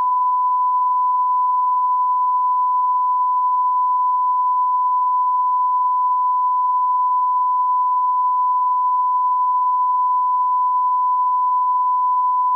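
Broadcast test tone: a single pure steady tone, held without a break and at an even level.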